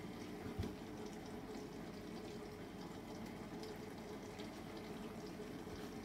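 Built-in dishwasher running its wash cycle: a steady sound of water spraying and sloshing inside the machine, with a soft thump about half a second in.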